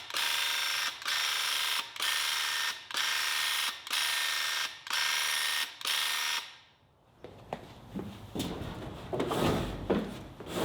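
A steady, high mechanical whine with many overtones, heard in about seven abrupt one-second pieces, stops about six and a half seconds in. Quieter, irregular rubbing and knocking sounds follow.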